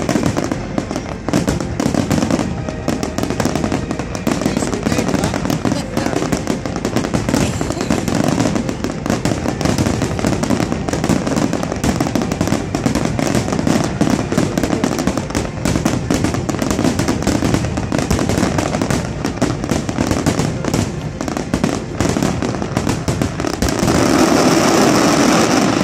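Fireworks display finale: a dense, rapid barrage of aerial shell bursts and crackling with no gaps. It grows louder near the end.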